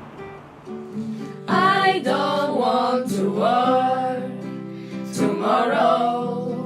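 A song: a voice singing over guitar accompaniment, the voice coming in about a second and a half in.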